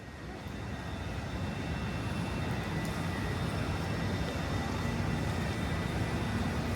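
Rainy city street ambience: a steady roar of traffic and rain hiss, fading in over the first second or so.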